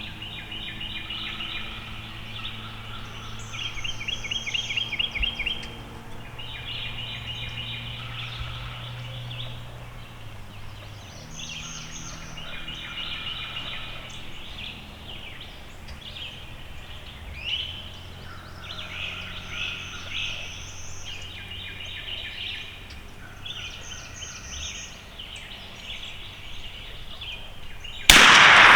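Songbirds singing in repeated short trills over a faint low hum, then a single loud shotgun blast near the end as the gobbler is shot.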